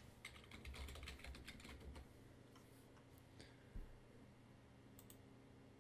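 Faint typing on a computer keyboard: a quick run of keystrokes over the first two seconds, then a few scattered key clicks.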